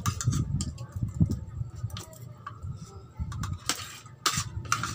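A person eating close to the microphone: chewing and mouth sounds, with short clicks of a spoon and fork against the plate. A few sharper clicks come near the end.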